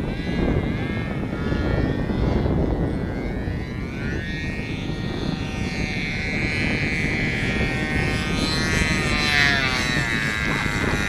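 Radio-controlled model airplane's small propeller engine buzzing, its pitch sliding up and down as the plane flies past and comes in to land on the runway.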